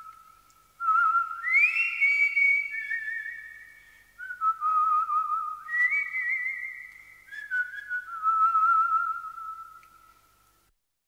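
A melody whistled by a person: long held notes with a wavering vibrato, phrases that slide up to a high note and step back down, fading out shortly before the end.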